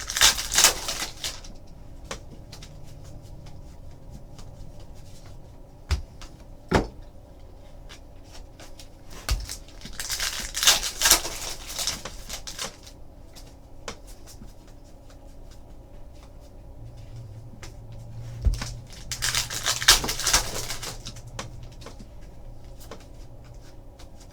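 Trading card packs and cards being handled: three bursts of rustling and crinkling, near the start, about halfway through and near the end. Between them come a few soft knocks of cards or packs set down on a table.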